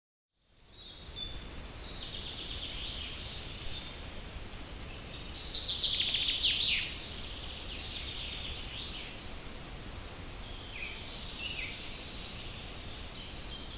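Several small birds chirping and trilling over a low steady rumble, busiest and loudest from about five to seven seconds in. The sound fades in out of silence at the very start.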